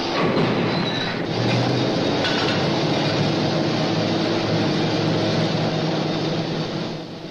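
Oil drilling rig machinery running: a loud, dense mechanical din with a few clanks, easing slightly in level near the end.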